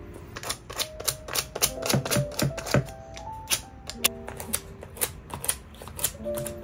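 Dust-removal sticker pressed onto and pulled off a phone's glass screen again and again: a quick run of sharp, sticky ticks and snaps, about three a second, over soft background music.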